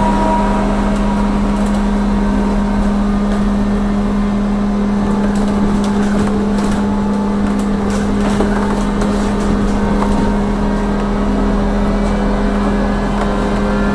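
Electric trolleybus running along the road, heard from on board: a steady electric hum and a motor whine that shifts in pitch in the first couple of seconds, over tyre and road noise, with a few faint knocks partway through.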